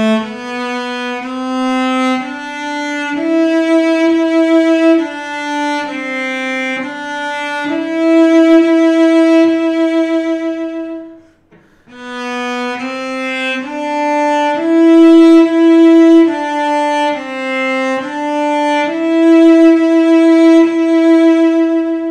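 Solo cello, bowed, playing a short exercise of held notes twice through with a brief break about halfway, with vibrato on the longer notes. It is a first-to-second-position shifting exercise, played once with each of two fingerings.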